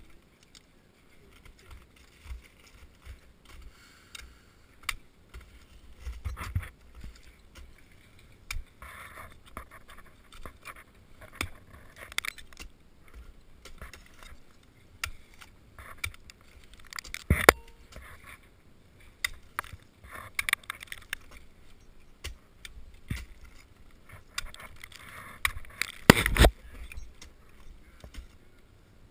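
Ice tools and crampons striking and scraping a frozen waterfall: irregular sharp impacts a few seconds apart with jangling gear and scraping ice, the loudest about halfway through and again near the end.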